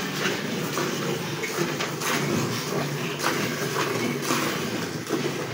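Cow being milked by hand, milk squirting into a pail in a run of short, repeated squirts.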